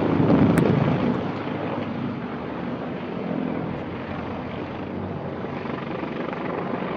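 Helicopter running: a steady rushing of rotor and engine noise, a little louder in the first second and then steady.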